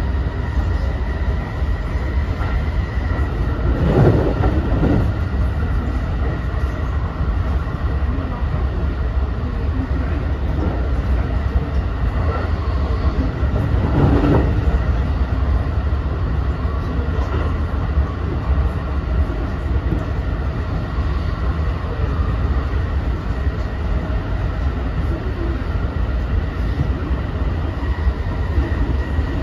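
Running noise inside an unpowered trailer car of a JR West 223 series 2000-subseries electric train: a steady rolling rumble of wheels on rails with a thin, steady high whine. Two brief swells of louder rumble come about four and fourteen seconds in.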